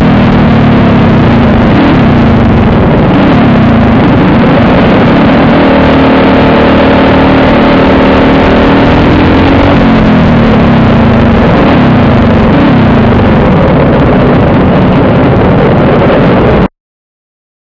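Four-stroke Animal kart engine heard close up from the driver's helmet, running loud with its pitch rising and falling as it is worked through the turns and held steady for a few seconds in the middle. The sound cuts off abruptly near the end.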